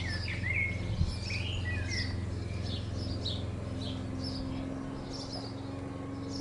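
Small songbirds chirping and twittering in quick repeated notes, with a few short whistled glides in the first two seconds, over a steady low hum.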